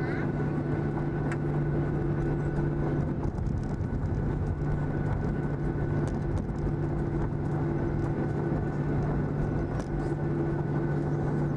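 Cabin noise of a Boeing 737-800 taxiing, heard from a window seat: its CFM56-7B jet engines run at low taxi power with a steady drone and a constant high whine, over a low rumble.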